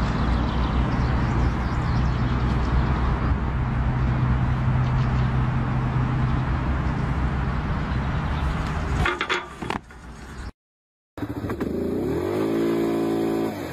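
A steady low rumble with outdoor noise, a few sharp knocks about nine seconds in, then after a break an ATV engine revving up and dropping back.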